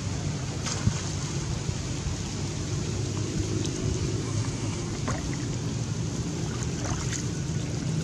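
Steady low rumbling noise throughout, with a few faint splashes from a macaque swimming in shallow water and climbing out.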